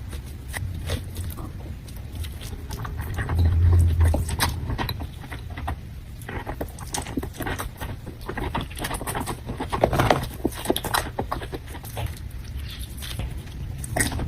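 Close-miked eating sounds of a seafood boil: many small wet clicks, smacks and cracks of chewing and handling crab, with a low thump about four seconds in.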